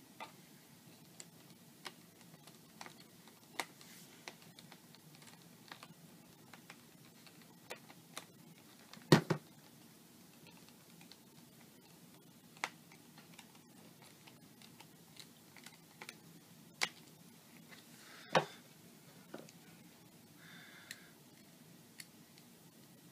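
Scattered small clicks and taps from a small screwdriver and laptop parts being handled while the last two screws go into a laptop's screen bezel, with two louder knocks about nine and eighteen seconds in.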